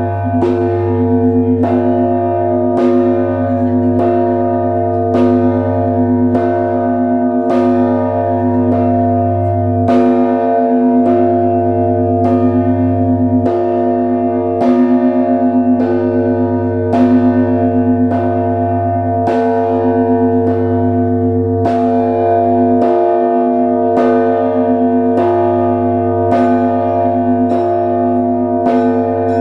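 Russian Orthodox bell ringing on the Trinity-Sergius Lavra belfry: smaller bells are struck in a steady rhythm a little more than once a second, each ringing on. Under them a deep bell booms every two to three seconds, its hum never dying away.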